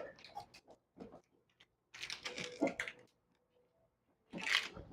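Light clicking and tapping from handling a wall light switch and its switch plate cover, fitting the plate over the switch, in a few short clusters.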